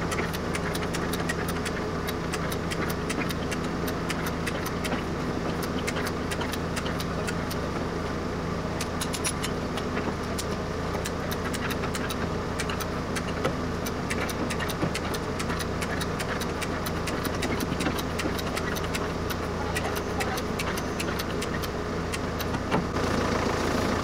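An engine running steadily at idle, its low hum unchanging, with many short sharp clicks scattered over it.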